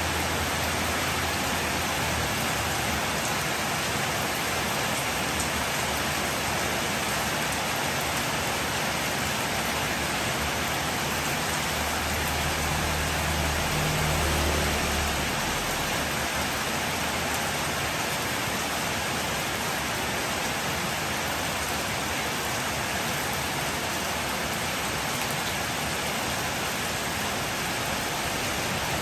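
Steady heavy rain falling on a street. About halfway through, a motorbike passes close by, adding a brief low engine hum over the rain.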